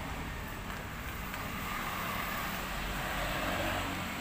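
Steady road traffic noise from a main road just ahead, swelling slightly about three seconds in.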